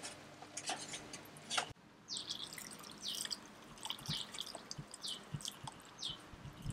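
A few light clinks of a spoon in a steel pot, then chicken broth pouring from a saucepan into a glass bowl, with a run of short high drips and plinks about every half second.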